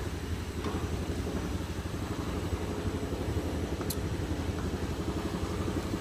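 Steady low rumble of a gas stove burner under a nonstick pan of fish simmering in a reducing sauce, with a few light clicks of a plastic spatula against the pan.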